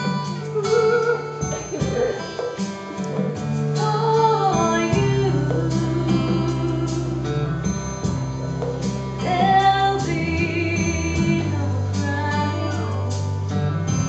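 A young woman singing a slow song solo into a handheld microphone over an instrumental backing track, her voice holding long notes and sliding between them.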